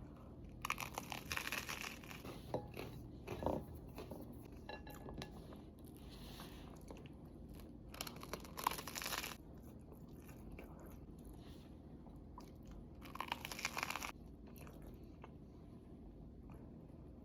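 Person biting and chewing crunchy food close to the microphone, in three spells of crunching: about a second in, near the middle and toward the end.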